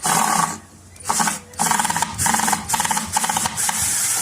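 Power drill running through a 105-degree right-angle screwdriver attachment, driving a screw in several short bursts that start and stop, with a pause about half a second in and a longer run through the second half.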